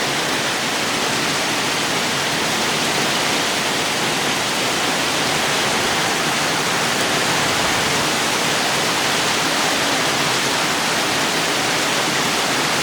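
Heavy rain pouring steadily, a dense, even hiss without let-up.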